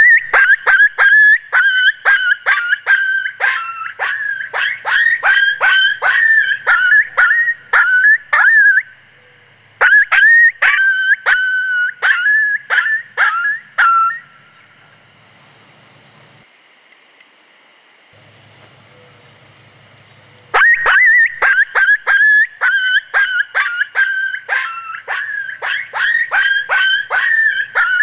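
Predator call sounding rapid, high, yelping coyote distress notes, about two a second, each dropping in pitch, to call coyotes in. It comes in three runs, with a short break about nine seconds in and a longer pause from about 14 to 20 seconds.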